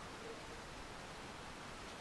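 Wind blowing through trees: a steady, faint rustling hiss with no distinct gusts or other events.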